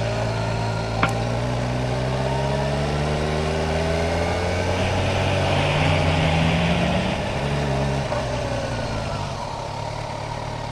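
Kawasaki Ninja 1000's inline-four engine pulling at low speed in a low gear, its pitch slowly rising, then dropping back about eight seconds in as the bike slows to park. A single click comes about a second in.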